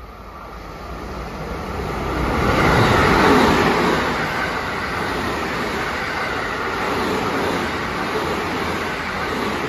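Electric multiple-unit rapid train running through a station at high speed without stopping. The rumble of wheels on the rails rises as it approaches and is loudest about three seconds in, then stays as a steady rush while the cars go by.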